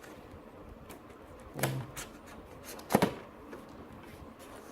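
Quiet handling of camera accessories and their packaging, with a sharp click or knock about three seconds in and a brief low sound shortly before it.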